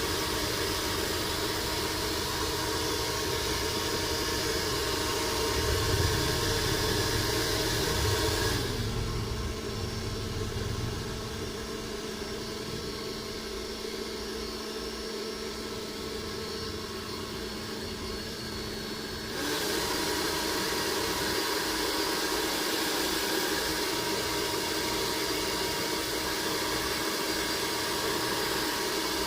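Pet hair dryer blowing steadily. About nine seconds in, it drops to a slower, quieter speed with a lower hum, then comes back up to full speed about ten seconds later.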